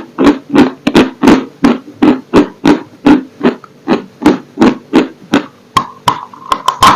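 Close-miked chewing of a dry, hard crunchy chunk, about three crunches a second. Near the end the chewing pauses for a brief steady tone, then a sharp click.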